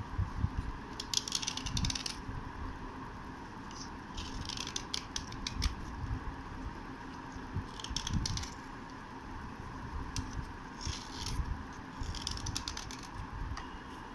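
Fingernail scraping the edge of a thin triangular slate pencil piece, a dry gritty crackle as bits of slate flake off, in about five short bursts a few seconds apart.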